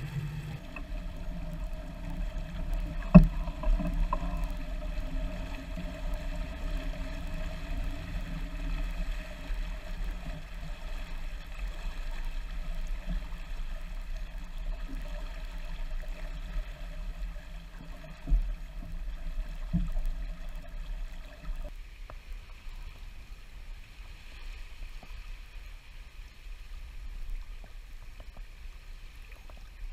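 J-35 sailboat under way: a steady rumble of wind on the microphone and water rushing along the hull, with a few sharp knocks, the loudest about three seconds in. The low rumble drops off about two-thirds of the way through.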